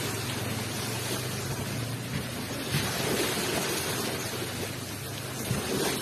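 Ocean waves rushing onto a shore: a continuous wash of surf with a low rumble, swelling as a wave breaks about three seconds in and again near the end.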